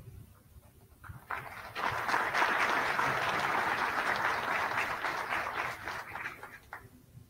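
Audience applauding. The clapping builds up about a second in, holds steady, and stops near the end.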